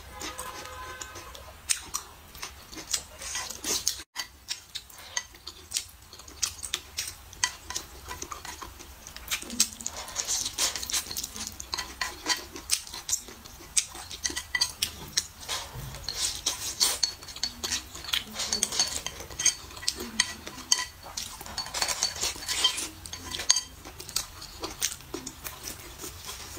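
Wooden chopsticks repeatedly clicking and scraping against a plate as food is picked up, many short sharp clicks throughout.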